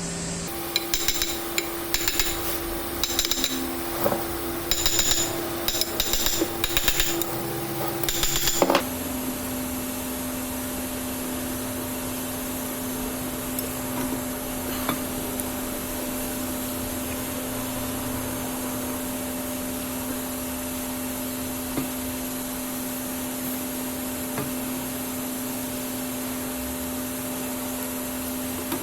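A hammer striking metal, about a dozen ringing blows, irregularly spaced over the first nine seconds, over a steady hum. The sound then cuts to a steady mechanical hum with a few faint ticks.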